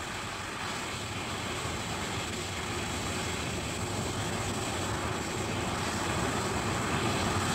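Jet aircraft in flight: steady rushing engine noise that grows slightly louder toward the end.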